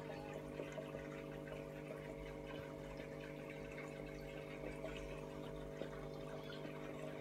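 Aquarium filter running: a steady motor hum under water trickling and dripping, with a few light clicks.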